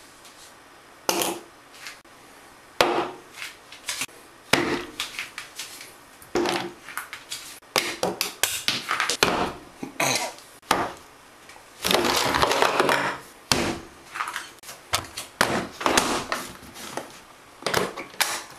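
Toiletries (bottles, a can, a soap bar and a razor) being set down one after another on a bathroom countertop: a string of sharp knocks and clatters, busiest about twelve seconds in.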